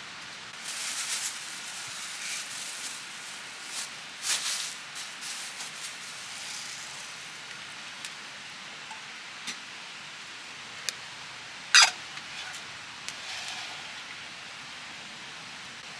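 Steady rush of a river with scattered crackles and pops from a wood campfire, one sharp, loud pop about three quarters of the way through.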